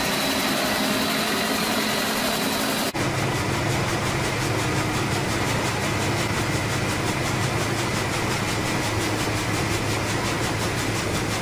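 Single-phase combined rice mill running steadily under load: a dense, even machinery noise with a constant hum. About three seconds in the sound cuts abruptly to a version with a stronger low hum.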